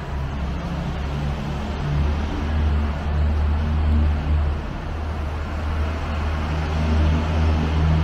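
City road traffic: a steady low rumble of passing vehicles.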